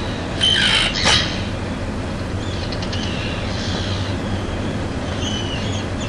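Terns giving harsh squawking alarm calls, played back through a laptop's speakers: two loud calls about half a second and a second in, then fainter calls later, over a steady low hum.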